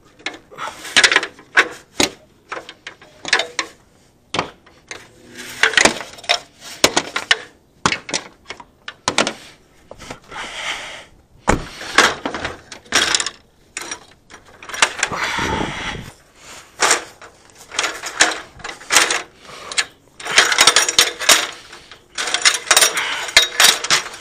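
A Louisville fibreglass extension ladder being handled off a truck's ladder rack and set up, with many irregular clanks and knocks of its rails and metal rungs. Longer rattling, scraping stretches come near the middle and again toward the end.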